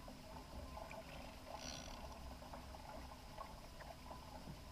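Kayak on calm water: faint water movement against the hull over a low, steady rumble of wind on the microphone, with a brief hiss about a second and a half in.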